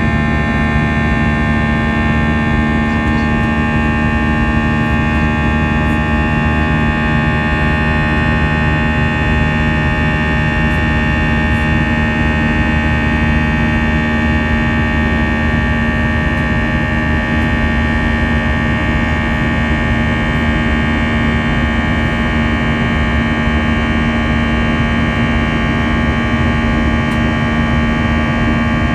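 Airbus A320-200 jet engines running steadily, heard inside the forward cabin as a constant rush of noise with a steady hum and whine, unchanging in pitch and level.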